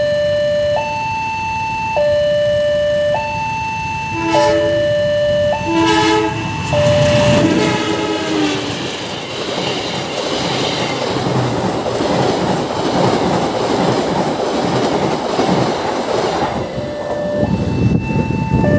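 A level-crossing warning alarm rings in an alternating two-note pattern. About four and six seconds in, a train gives two short horn blasts, then a passenger train passes close by, its wheels rumbling and clattering over the rails for about ten seconds. The two-note crossing alarm is heard again near the end.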